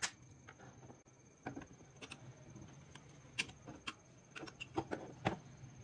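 Scattered metallic clicks and taps of the rusty steel parts of a TT-30 pistol being handled and fitted together, about eight in all, the loudest at the very start and about five seconds in.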